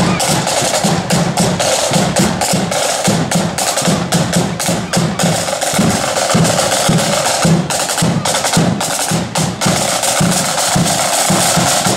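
Marching band drum section playing a parade beat on its own: rapid snare drum strokes and rolls over steady bass drum beats, with no flute tune.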